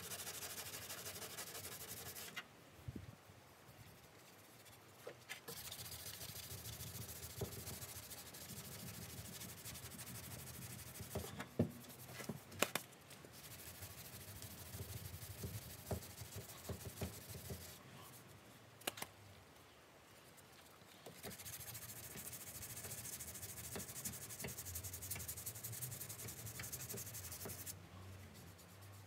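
Hand sanding of body filler on a classic Mini's rear panel with a sanding sponge: three spells of rasping strokes broken by short pauses, with a few sharp knocks near the middle.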